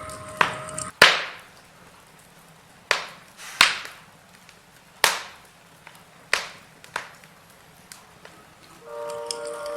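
Burning logs in a fireplace crackling, with about six sharp pops a second or so apart over a faint hiss.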